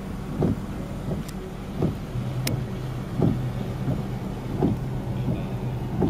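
Vehicle engine running with a steady low hum, and a short low thump about every one and a half seconds.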